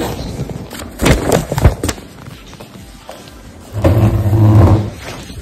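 A few sharp knocks and thuds about a second in, then a loud, low, steady scraping drone for about a second near four seconds in, typical of a chair being dragged across a hard floor.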